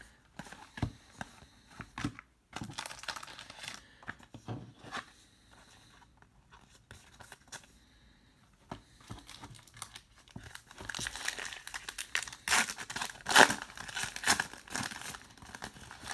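Trading cards sliding and flicking against each other as they are flipped through, then from about 11 seconds in a plastic trading-card pack wrapper crinkling and tearing as the next pack is opened, the loudest part.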